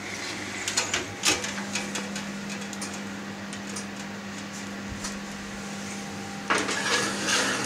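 A handleless frying pan holding pork in a roasting bag being lifted off a gas hob and slid into the oven: a few knocks about a second in, then a longer scraping clatter near the end as it goes onto the oven rack. A steady low hum runs underneath.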